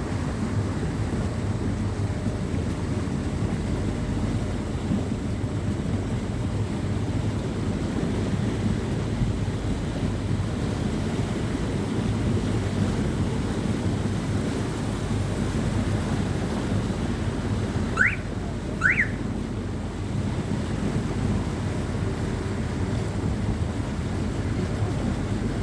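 Tour boat's engine running steadily, a low even hum with water and wind noise. About two-thirds of the way through come two quick rising chirps, a second apart.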